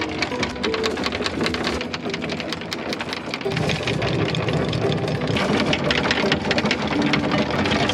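Electric anchor windlass hauling in the anchor: the motor runs steadily while the chain rattles continuously over the gypsy in a dense stream of clicks.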